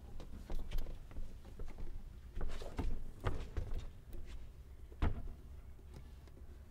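Scattered light knocks and clicks of an accordion and a small guitar being handled and settled, over a low rumble; a cluster of knocks comes near the middle and the sharpest single knock about five seconds in.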